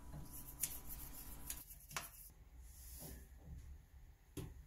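Faint rubbing of a cut-open toothpaste tube against a chrome faucet, with a few soft clicks over a low steady hum.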